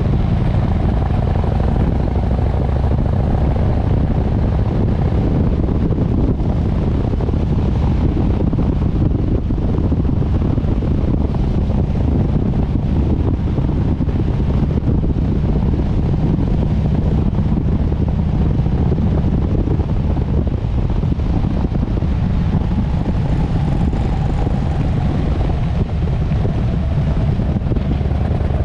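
Harley-Davidson Sportster S motorcycle engine running steadily at riding speed, with wind rushing over the microphone.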